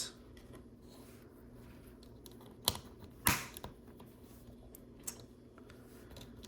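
Small plastic LEGO pieces clicking and clattering as they are picked out and handled: two louder clacks near the middle, the second slightly longer, with a few faint ticks around them.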